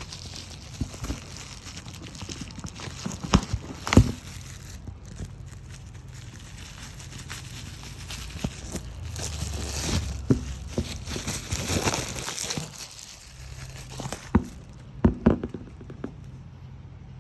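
Packaging being handled: crinkling and rustling broken by scattered sharp knocks, the loudest about four seconds in and a group of them near the end.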